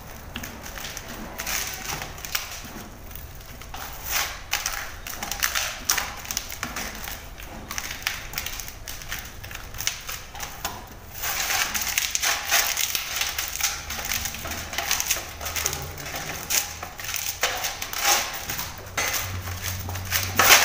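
Hands kneading roti dough in a steel plate: irregular pressing, squashing and knocking sounds as the fists work the dough against the metal. They get busier and louder about eleven seconds in.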